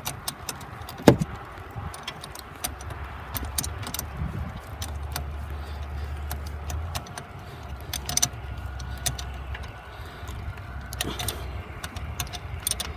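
Irregular metallic clicks and clinks of a wrench on an AC line fitting as the fitting is threaded in and tightened down, with one sharper clank about a second in, over a steady low hum.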